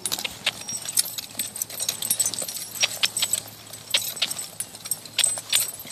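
A horse trotting on long lines: hoofbeats on dry turf, with its tack jingling in irregular sharp clicks, several a second.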